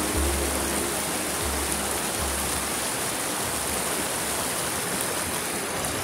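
Steady rushing of a rocky mountain stream and waterfall, an even hiss of water. Deep bass notes of background music pulse under it for the first two seconds or so, then stop.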